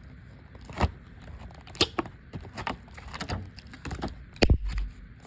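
Handling of a boxed mini card binder and its packaging: a string of sharp clicks and rustles, with a heavier thump about four and a half seconds in.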